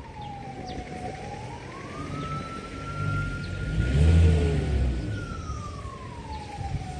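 A siren-like wailing tone: it falls, rises and holds high for a few seconds, then falls again, over a low rumble that is loudest near the middle.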